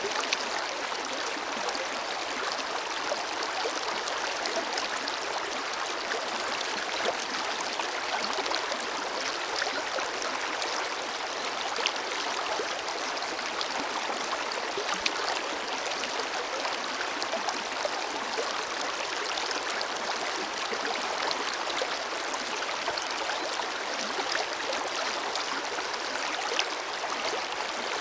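Forest river flowing steadily over stones: an even rushing of water with a constant fine babble of small splashes and gurgles, little deep rumble.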